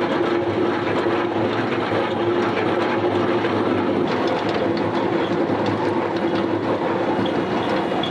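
Heavy construction machinery at work: a diesel engine running steadily under load with a constant mechanical clatter over it.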